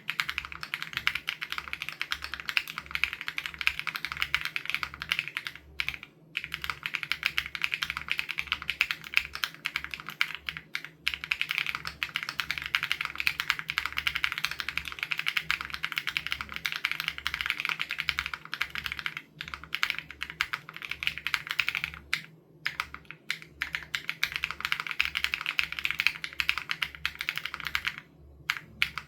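Fast, continuous typing on an SPM AL87B custom mechanical keyboard with BSUN Raw switches: a dense run of keystroke clacks, broken by a few short pauses of under a second.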